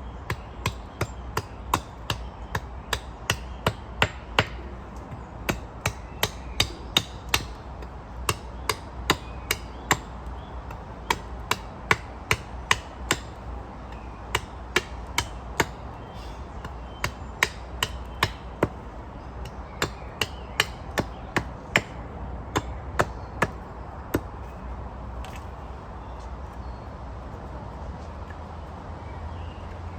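Hammer blows driving new wooden stakes into the ground: steady strikes about two a second, in runs of several with short pauses, ending about 24 seconds in.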